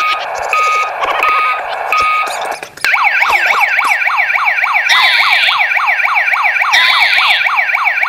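Electronic sound effects from a toy steering-wheel RC remote's built-in speaker. For about two seconds it gives a repeating beeping alarm, then, after a brief gap, a fast electronic yelp siren wailing up and down several times a second.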